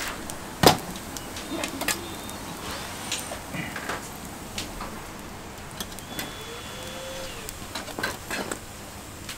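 Metal kitchen clatter: one sharp clank about a second in as a wire rack is slid out of a griddle-oven, then scattered lighter clicks of metal tongs against the rack.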